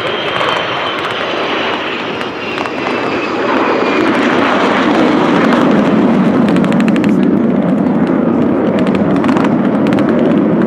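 Jet aircraft flying past low overhead: a high whine falls in pitch over the first few seconds, then the engine noise swells to a loud, steady roar that holds to the end.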